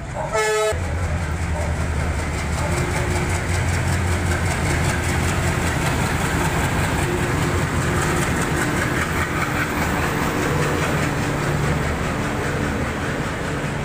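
Diesel locomotive hauling a passenger train along the platform as it pulls into the station: a steady low engine drone with rolling wheel noise from the coaches. A short high-pitched call sounds just before the train noise swells, about half a second in.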